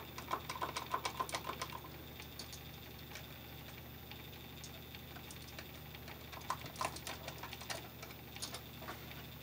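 Small screwdriver and copper wire clicking and tapping against a plastic light switch while a wire is freed from its push-in terminal through the release slot. There is a quick run of clicks over the first two seconds, then a few scattered clicks near the end.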